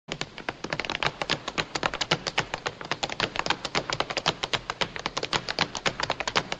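Two dancers' tap shoes striking a wooden floor in a fast, unbroken stream of taps, about eight to ten a second, with no music under them.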